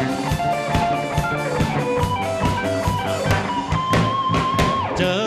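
Live band playing an instrumental break: an electric guitar plays a lead line over drum kit and bass, holding one long high note near the end before it drops away.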